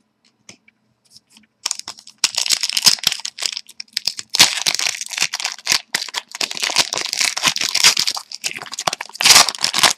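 Hockey trading-card pack wrapper being torn open and crinkled by hand: a few small clicks, then about eight seconds of continuous crackling and tearing, loudest near the end.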